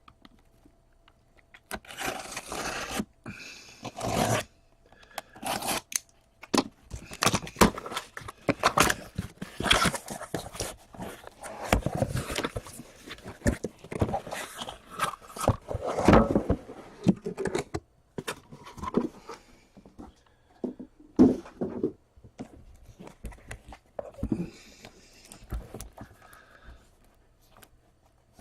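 Sealed cardboard case being opened by hand: tape and cardboard tearing, scraping and crinkling in irregular bursts with short pauses.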